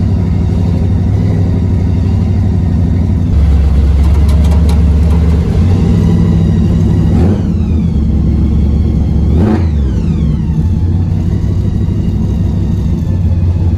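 Supercharged big-block Chevy V8, running on Terminator X electronic fuel injection, driving under way while still warming up. Its low rumble grows heavier about three seconds in as the truck comes onto the throttle.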